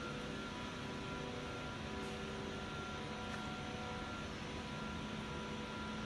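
Steady hum of factory machinery: a constant noisy hiss with several steady tones held through it.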